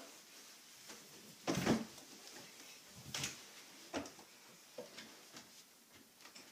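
A few scattered soft knocks and thumps, the loudest about one and a half seconds in, with faint rustling in between, as a person moves about a small room.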